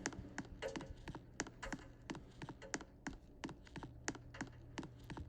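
Ceiling fan running, with a low steady hum and a sharp click repeating about three times a second.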